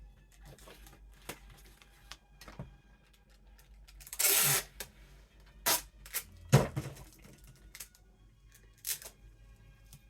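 Packing tape pulled off its roll in one short rip about four seconds in, then a few sharp clicks and taps as the tape and poster board are handled and pressed down.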